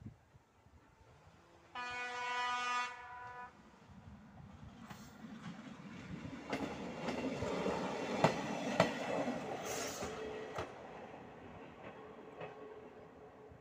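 Passenger train sounding one horn blast of about a second and a half, a warning for the ungated level crossing. Its rumble on the rails then builds, with a run of sharp wheel clicks on the track and a brief high squeal, before fading away.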